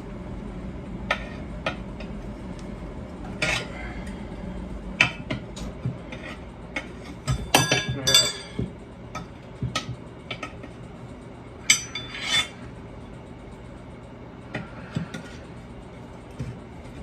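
Metal tools clinking and knocking against a steel wheel rim as a lawn tractor tire is levered on, in irregular sharp clinks with a busy flurry around the middle, over a steady low hum.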